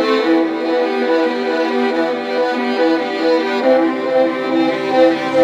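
Background music: a bowed-string tune, violin-like, played in quick, even notes.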